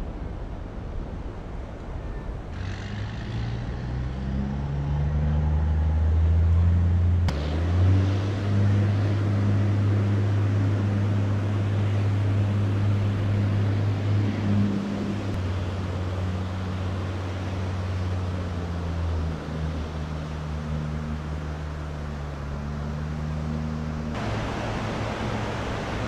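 Heavy engines running with a low, steady drone over a wash of surf and wind noise, their pitch shifting a little. The sound changes abruptly about seven seconds in, and near the end the engine fades under louder surf and wind hiss.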